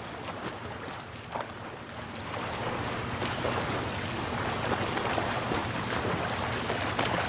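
Soft rushing noise like surf or running water in the soundtrack, slowly swelling in level, in a gap between music passages.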